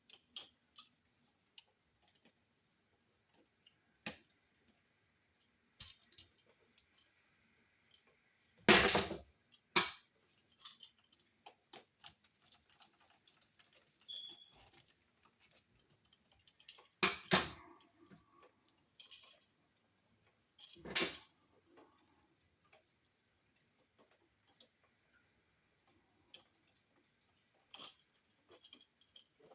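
Scattered light metallic clicks and taps from a hand tool and copper wire as a wire end is bent into a clockwise loop for a receptacle's screw terminal, with three louder knocks about nine, seventeen and twenty-one seconds in.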